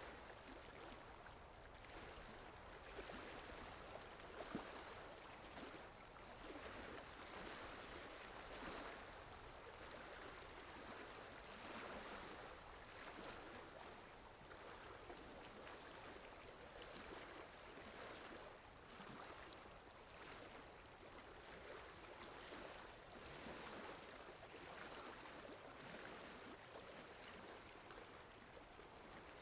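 Steady rainfall: a faint, even hiss that swells and eases a little every few seconds.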